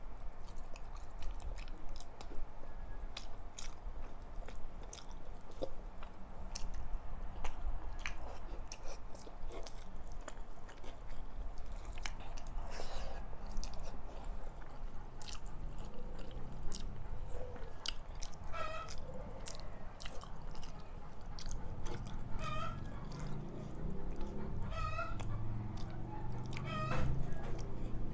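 Close mouth sounds of someone eating rice and vegetable stew by hand: chewing with many small wet clicks and smacks. From about two-thirds of the way in, several short animal calls sound in the background.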